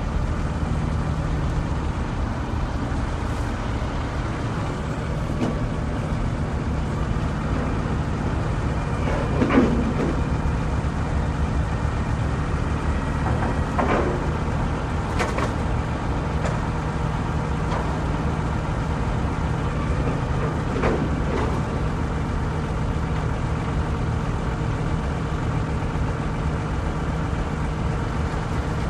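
Shipyard and harbour ambience: a steady, loud low machinery drone with a constant hum, broken by a few scattered knocks, one about ten seconds in and others near the middle and two-thirds of the way through.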